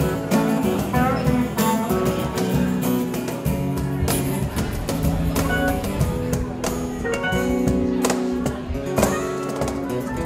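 Live acoustic band music: an acoustic guitar strummed over a steady beat of hand hits on a cajón.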